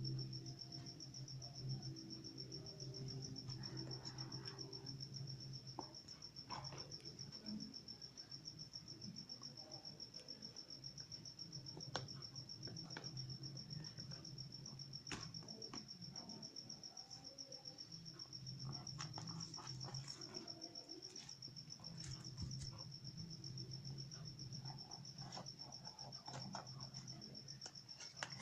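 A cricket trilling steadily at a high pitch, over a low hum, with scattered faint clicks and rustles.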